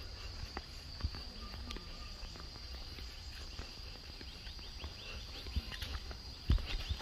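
Steady high insect drone with an uneven low rumble, and footsteps or knocks now and then. Near the end come a run of quick short chirps and a couple of sharper knocks.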